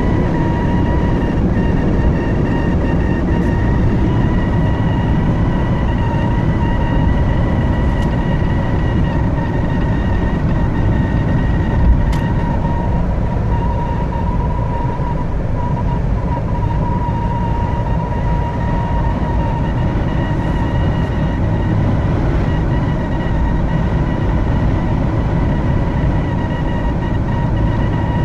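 Steady, electronic-sounding whistling tone from a poorly sealed car windshield at highway speed, heard inside the cabin over a constant low road and wind rumble. The noise comes from a faulty factory windshield seal.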